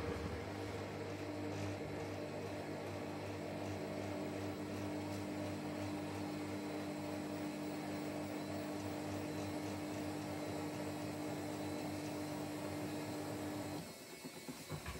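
Samsung WW90 front-loading washing machine running through its pre-wash spin, the drum motor turning at a steady speed with a steady hum and whine. The motor cuts out near the end.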